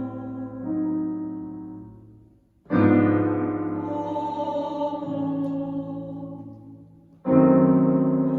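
Piano playing slow, full chords, each struck and left to ring and fade; a new chord comes in about every four to five seconds.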